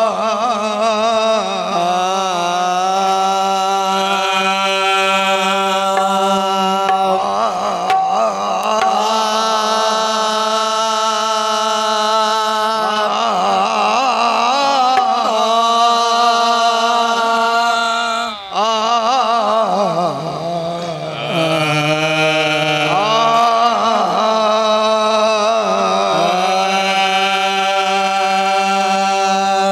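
Qawwali singing: a man's voice holding long drawn-out notes that waver and glide in pitch, over steady harmonium accompaniment. The sound dips briefly about 18 seconds in.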